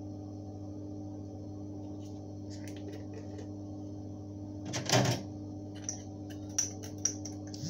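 Steady low electrical hum, with one sharp knock about five seconds in and a few light clicks near the end, typical of a seasoning container being handled and set down on the worktop.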